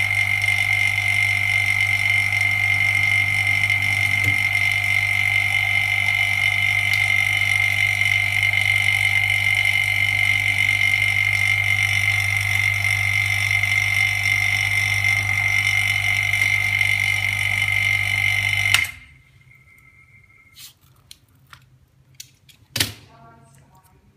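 Semi-automatic LCD separator machine running with a steady hum and high whine, which cuts off suddenly about 19 seconds in. A few light clicks and a single knock of handling on the work surface follow.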